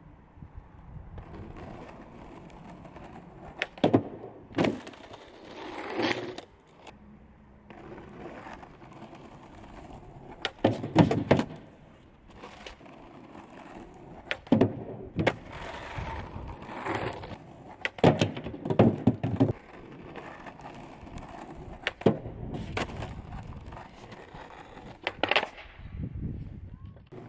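Skateboard wheels rolling, broken by a dozen or so sharp clacks and slaps of the board: tail pops and landings from ollies into manuals on a homemade manual pad.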